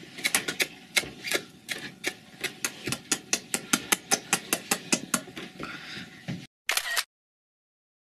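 Quick repeated kissing smacks of lips as kisses are blown, several a second. They stop about six and a half seconds in, followed by one brief burst of sound.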